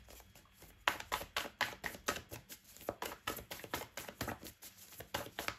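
A deck of cards being shuffled by hand: a quick, uneven run of soft card clicks starting about a second in.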